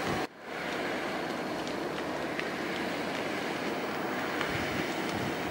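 Dry-grass wildfire burning: a steady rushing roar with scattered faint crackles. The sound drops out for a moment just after the start.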